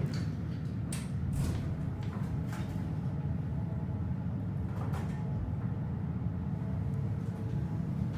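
Hydraulic elevator cab in motion: a steady low hum with a few light clicks and rattles from the cab and doors.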